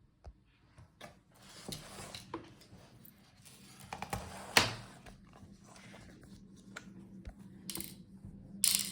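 Laptop parts being handled as the ThinkPad's palmrest and keyboard assembly is lifted away from the chassis: scattered light plastic and metal clicks and knocks, with a sharp click about four and a half seconds in and brief rustles near the end.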